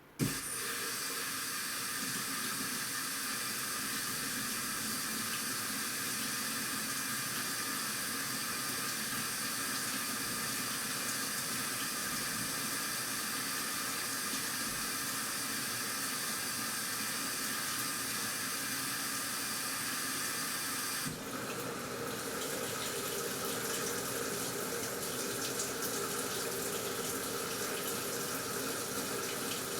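Washing machine filling with water: a steady rush of water that starts suddenly and shifts in tone about two-thirds of the way through.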